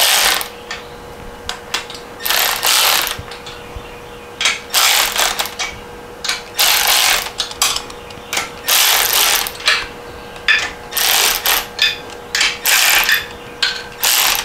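Hand ratchet wrench clicking in repeated strokes, about seven short bursts of clicks a second or two apart, as the nuts on an engine's crankcase studs are drawn down a little at a time.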